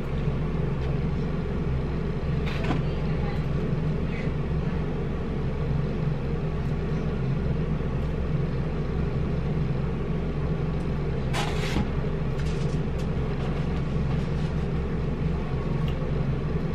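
A steady low rumbling drone, with two brief sharp smacks of eating.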